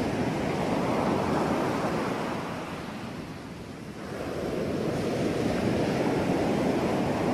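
Ocean surf washing in, easing off about three seconds in, then building again.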